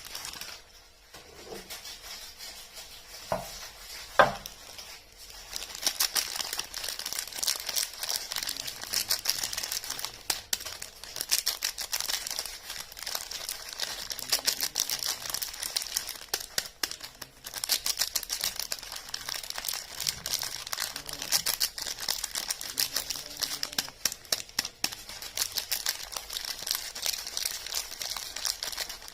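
Soap bar wrapper crinkling as it is unwrapped, a dense run of fine crackles starting about six seconds in. Before that, two sharp taps about a second apart, the second the loudest sound.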